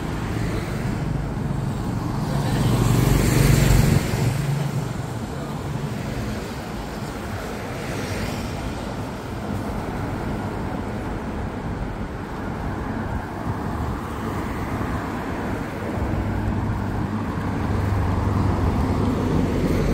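City street traffic: steady road noise, with a vehicle passing close a couple of seconds in and another engine's low hum near the end.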